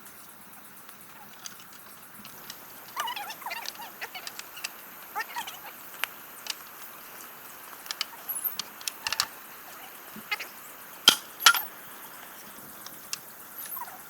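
Short chirping animal calls every second or two, with scattered sharp clicks, over a faint steady high hiss.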